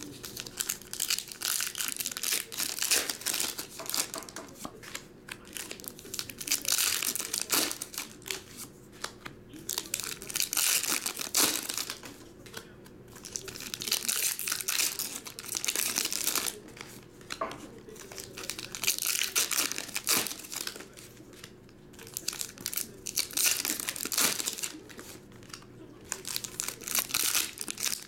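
Foil Pokémon booster pack wrappers being torn open and crinkled by hand, in crackling bursts several seconds long with short lulls between.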